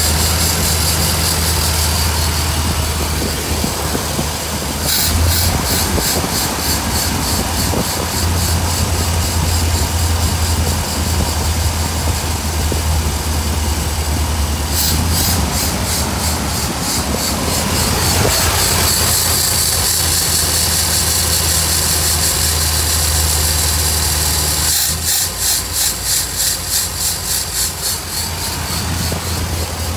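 1966 Cadillac 429 V8 with Holley Sniper throttle-body fuel injection idling steadily, its idle speed rising and falling slightly: the hunting idle that the owner puts down to the Sniper's idle air control valve opening and closing.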